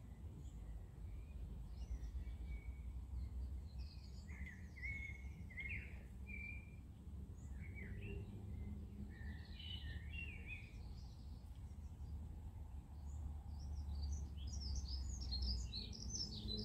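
Small birds chirping in scattered short, quick notes, busier near the end, over a low steady outdoor rumble.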